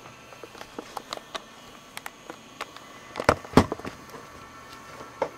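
Scattered small clicks and crackles, with two sharper, louder clicks about three seconds in and another near the end.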